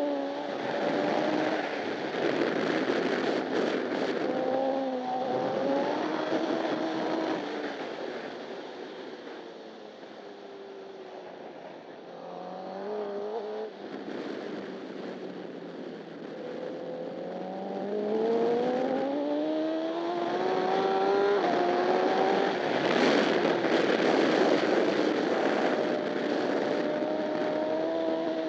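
Honda CBR1000RR superbike's inline-four engine heard from onboard at racing speed, with wind rush throughout. The revs climb and drop with gear changes, fall lower and quieter for a few seconds about eight seconds in, then rise steadily up through the gears in a long pull.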